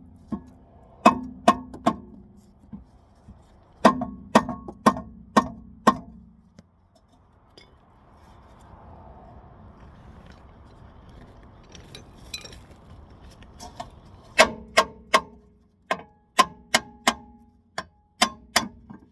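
A hammer striking a car's rear brake rotor to knock it off the hub: sharp metallic blows that ring briefly after each hit. They come in quick runs of several strikes, with a pause of several seconds in the middle.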